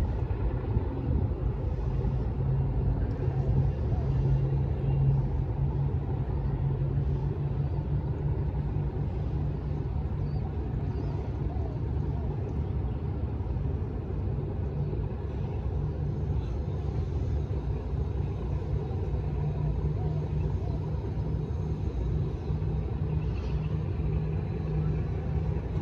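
Steady low background rumble with a constant low hum, unchanging throughout.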